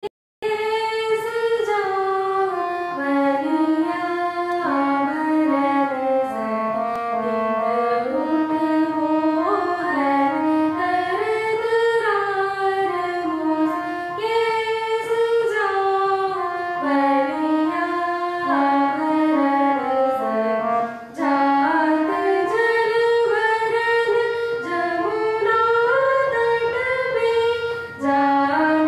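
A woman sings a Hindustani classical bandish in Raag Patdeep, accompanying herself on a harmonium. The melody moves in steps, with a few smooth vocal glides.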